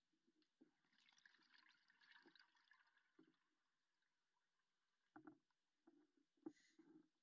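Near silence with a faint hiss, then a few faint, scattered clicks and knocks in the second half.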